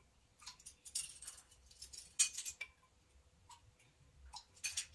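A metal tablespoon clinking against a glass jar as water is spooned out, in several short, sharp clinks with gaps between them; the loudest comes a little after two seconds in.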